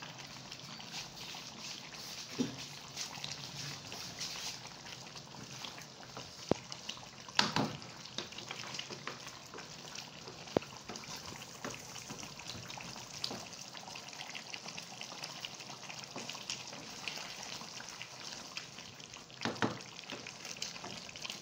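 Chicken cooking in yogurt in a karahi, the watery yogurt sauce bubbling and sizzling with a steady fine crackle. A wooden spatula knocks against the pan a few times, loudest about seven seconds in and again near the end.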